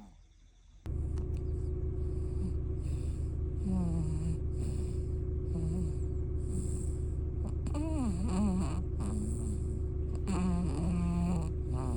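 A sleeping baby snoring, in quick, short breaths with a few brief pitched grunts, over a steady low hum that starts about a second in.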